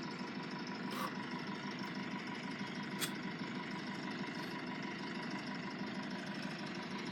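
A steady, even engine-like hum with two faint clicks, about a second and three seconds in.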